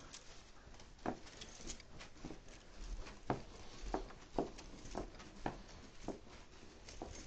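Footsteps: a string of soft, irregularly spaced steps, roughly one to two a second, starting about a second in.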